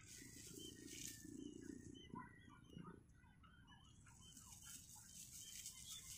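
Faint chickens calling: a run of short rising and falling clucks through the middle, over a low muffled sound in the first half.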